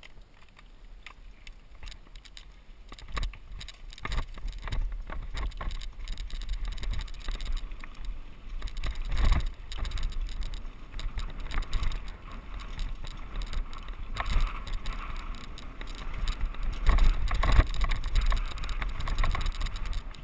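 Mountain bike riding down a dirt trail: the bike and camera rattle and knock over bumps while the tyres run on dirt, with wind buffeting the microphone. It gets louder about three seconds in as the bike picks up speed.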